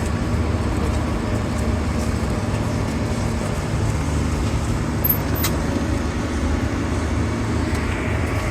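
Tractor engine running at a steady speed, a constant low hum with no change in pitch.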